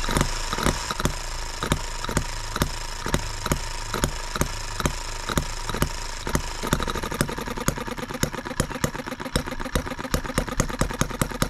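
H73 model single-cylinder gas engine running, each firing stroke a sharp pop at about three a second. About seven seconds in, the beat quickens and turns uneven, which the owner puts down to the carburetor changing its own setting.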